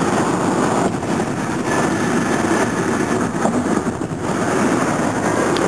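Steady road noise of a car driving at highway speed, heard from inside the cabin: tyre and engine rumble.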